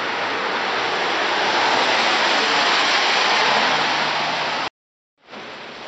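Heavy rain falling, a loud steady hiss. It cuts out abruptly near the end, and after half a second of silence the rain returns more quietly.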